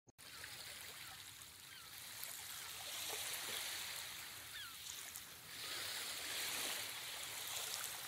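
Ocean waves washing on a shore, faint, swelling up twice, with a few short faint bird chirps over the surf.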